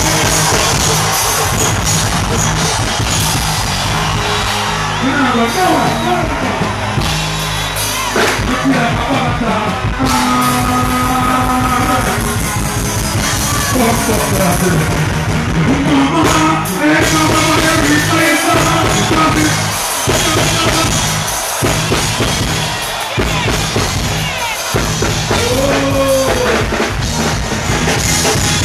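Live dancehall performance over a loud sound system: a deejay chanting and singing over a heavy bass riddim.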